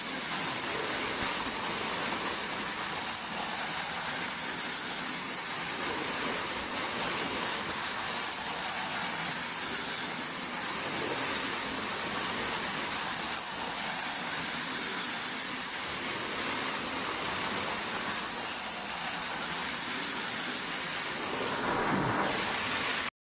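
Marx Commodore Vanderbilt O27 toy locomotive pulling tin cars around its track: a steady whir and rattle of motor and wheels that cuts off abruptly near the end.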